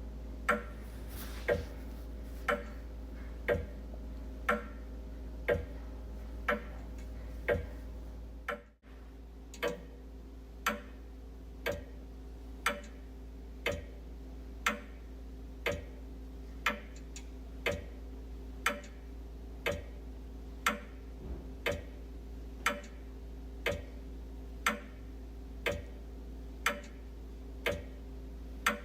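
Wall clock ticking steadily, about one tick a second, over a steady low hum. The sound drops out briefly about nine seconds in.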